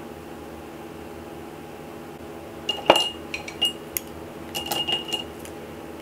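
Makeup brushes clinking against a hard container as one brush is put down and another picked up: a quick cluster of sharp clinks, a few with a short bright ring, starting about halfway in, over a faint steady hum.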